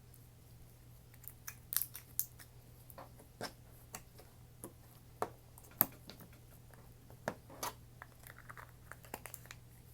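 Clear slime being handled, squeezed and stretched, with irregular sticky clicks and pops.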